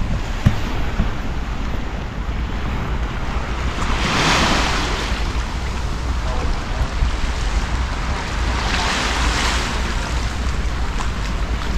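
Sea waves washing onto the shore, swelling twice, about four and nine seconds in, over a steady low rumble of wind buffeting the microphone.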